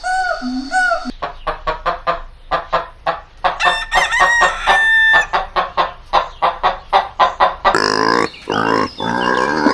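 Chickens clucking in a quick run of short calls, then a rooster crowing in one long, wavering call near the end.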